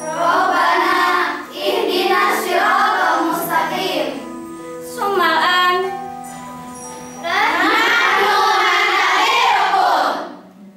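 A group of girls singing together in chorus, in loud phrases with short breaks between them. The last phrase stops abruptly about ten seconds in.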